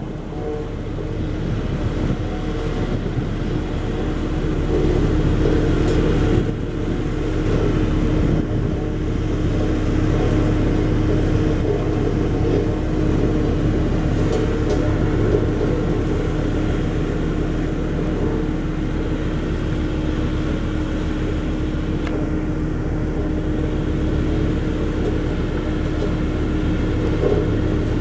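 Bomag BW 211D road roller's diesel engine running steadily at working speed, a continuous low drone with a constant hum over it.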